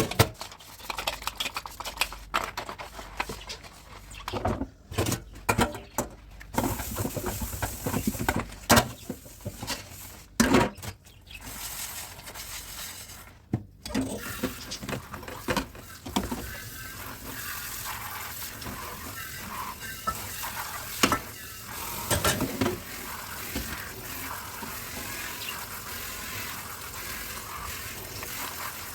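Dishes and cutlery clinking and knocking in a kitchen sink as they are washed. About halfway through, a tap starts running steadily, with a few more clinks as the dishes are rinsed.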